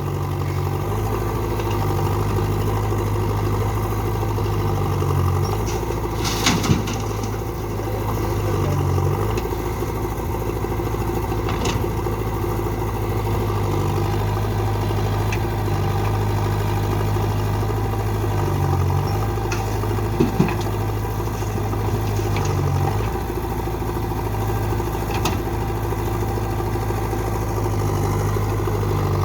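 A heavy machine's diesel engine running steadily at a constant speed, with two or three brief knocks or clanks, about a fifth of the way in and about two-thirds through.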